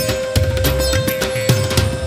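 Instrumental background music with a steady drum beat under a long held note.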